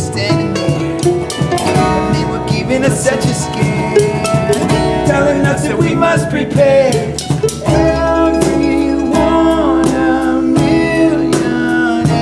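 Acoustic string band playing a bluegrass-style tune: strummed acoustic guitar, bowed fiddle, mandolin and upright bass together, with a steady driving rhythm.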